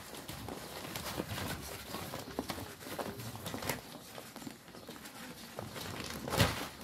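Two sheep feeding from a sheet on concrete: irregular small clicks, rustles and hoof steps as they eat and shuffle. One louder sudden sound near the end.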